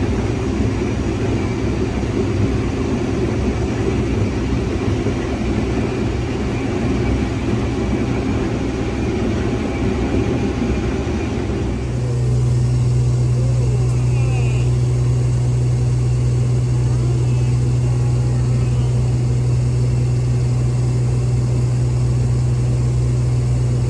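Case IH 2388 combine's diesel engine running. About twelve seconds in, the sound changes abruptly to a steadier, louder low hum.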